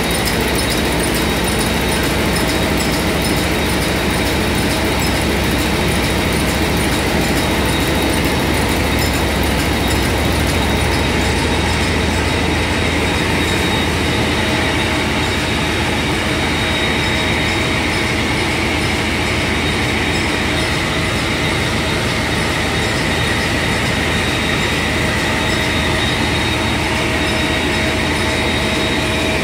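Niigata diesel engine running loudly and steadily, a dense, even rumble with a thin, constant high whine on top.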